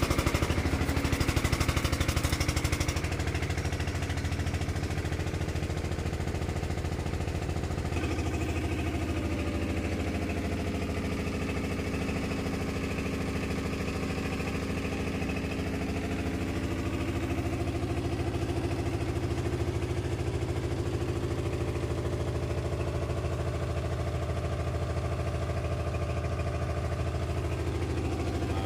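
An engine running steadily, its note drifting slightly up and down. It is louder and rattling for the first three seconds.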